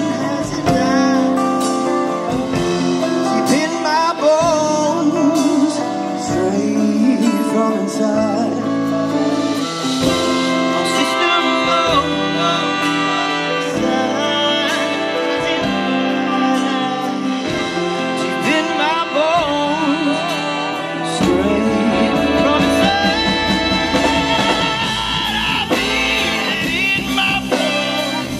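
Live band music with a singer: a swing-style band plays under a bending vocal line. The low end gets fuller about three quarters of the way through.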